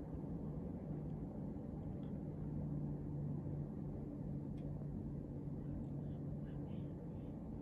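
A steady low hum with a faint rumble beneath it, even throughout.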